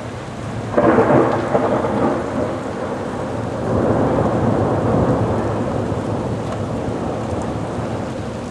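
Thunder over heavy, steady rain: a sudden loud crack about a second in, then a second rumble that swells and slowly fades.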